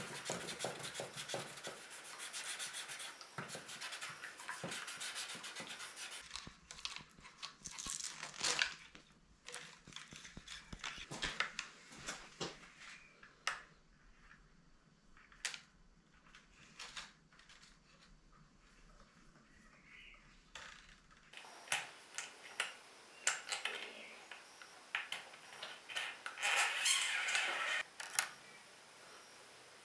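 Close-up handling sounds of bass guitar maintenance. For the first few seconds there is close rubbing on the rosewood fretboard. Scattered small clicks and scrapes follow as tuner hardware is tightened on the headstock, then more scratching and rubbing near the end as a string is threaded through the bridge.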